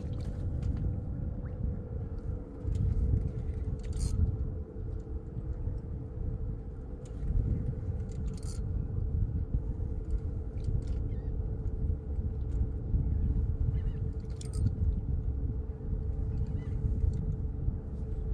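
Wind rumbling unevenly on the microphone aboard a small boat, over a steady hum, with scattered light clicks and taps.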